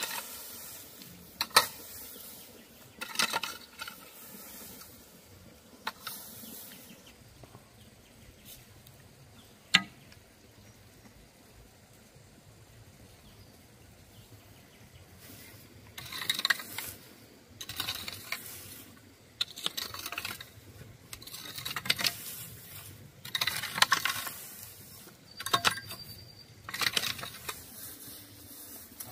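A hoe chopping into dry soil and grass mulch, its blade striking with a few sharp clinks in the first ten seconds. After a quieter spell, dry grass and soil are scraped and rustled in repeated strokes about every second and a half.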